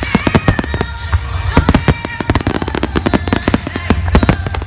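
Fireworks going off in quick succession, a dense run of bangs and crackles, with music playing under them.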